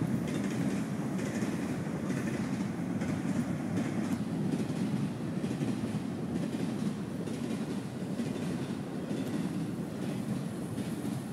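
Freight train cars rolling past: a steady rumble of wheels on the rails with a light clickety-clack over the joints.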